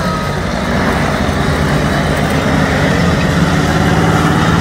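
Engines of several race cars racing around the track, a loud steady drone.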